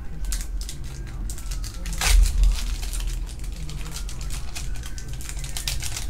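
Foil booster pack wrapper crinkling and crackling as hands work it open, in a run of quick crackles with one louder crackle about two seconds in.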